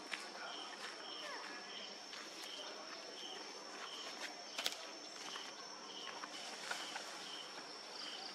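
Forest insects calling: a steady high drone with a second insect pulsing about twice a second under it. Scattered sharp clicks, the loudest a little past halfway.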